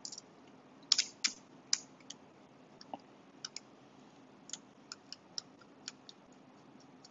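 Small sharp clicks and ticks of folding-knife parts (blade, pivot and handle scale) being handled and fitted together during reassembly: a few louder clicks about a second in, then lighter scattered ticks.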